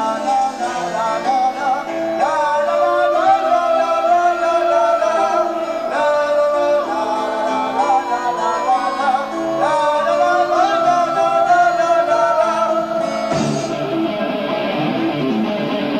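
Live progressive rock band playing an instrumental passage on an amateur tape recording. A lead melody with slides and bends runs over sustained chords, and the accompaniment changes suddenly near the end.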